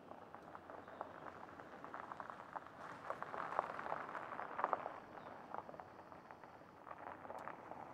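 Gravel crunching and popping under a pickup truck's tyres as it rolls slowly along a gravel driveway, loudest around the middle.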